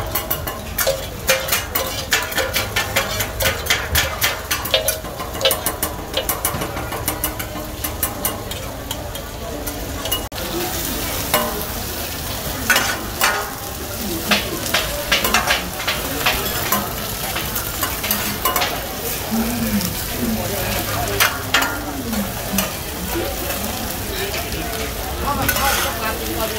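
Metal utensils clicking and scraping on a large flat pan, many quick clinks. About ten seconds in this gives way to eggs frying in hot oil on a large flat griddle: a steady sizzle with metal ladles scraping and tapping on the griddle.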